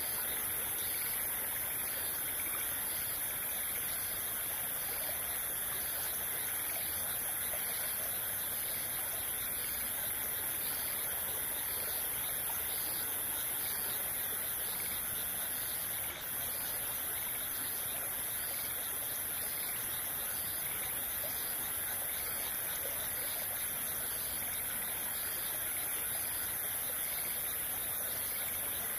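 Steady rush of a small stream running at night, with a faint high pulse repeating about every 0.7 seconds over it.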